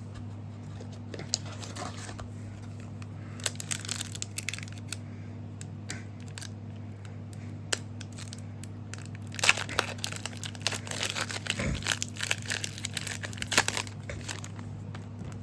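Foil trading-card booster pack being crinkled and torn open, in irregular crackling rustles: a light spell a few seconds in, then a denser, louder one from about ten seconds in.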